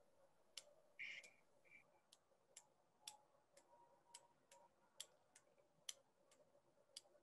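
Near silence broken by faint, sharp clicks at uneven intervals, a little under two a second.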